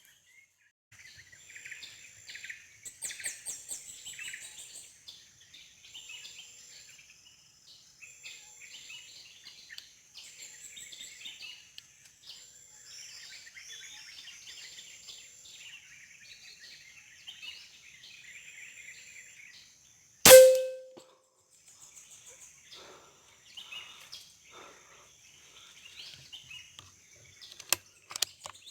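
Many forest birds chirping and calling at once over a steady high insect whine. About two-thirds of the way through, a single sharp, loud crack with a brief ringing tone cuts across them.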